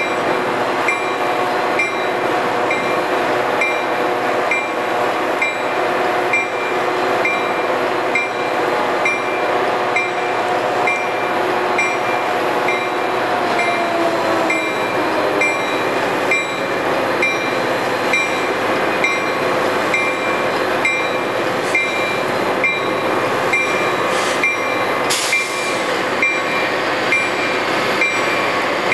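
Metra commuter trains at a station: a steady, loud rumble of rail traffic, with a faint high metallic ding repeating about one and a half times a second throughout.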